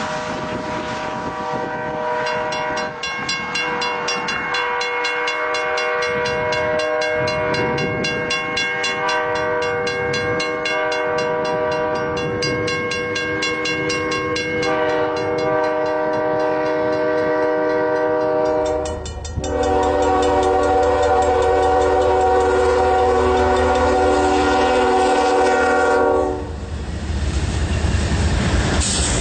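Locomotive air horn sounding a chord in long blasts as a train plows through deep snow. About two-thirds through, a louder, longer horn blast comes over the deep rumble of the train passing close.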